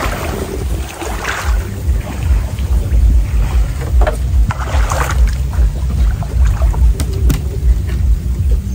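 Water splashing and sloshing as a person wades through shallow floodwater, over a steady low wind rumble on the microphone. Two light knocks near the end.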